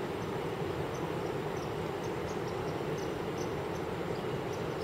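Steady distant roar of Iguazu Falls, an even low rushing sound with no breaks. Insects chirp over it in scattered short, high calls.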